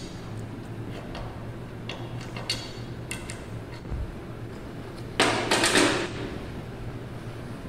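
Light, scattered metallic clicks of an Allen key working a screw on the display mount of a flat knitting machine. A dull knock follows about four seconds in. Just after five seconds comes a loud scraping rustle that lasts about a second.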